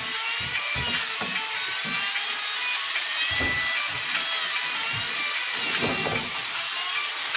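Diced lamb frying in a thick spice paste in a pan, with a steady sizzle. A wooden spatula scrapes and knocks against the pan as the meat is stirred.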